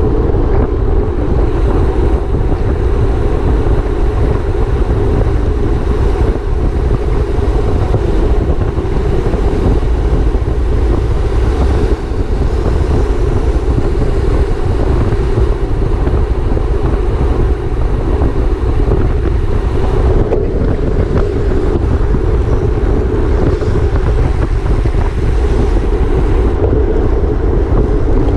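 Steady rush of wind over a racing cyclist's camera microphone at race speed, mixed with a low road rumble from the bicycle.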